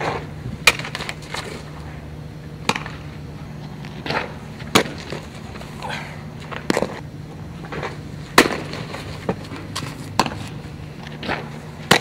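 Softballs smacking into leather gloves during a catcher's throwing drill: sharp pops every second or two, some louder than others, over a steady low hum.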